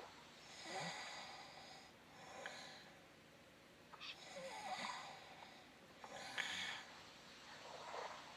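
A person snoring faintly: soft, noisy breaths come about every one to two seconds, five in all.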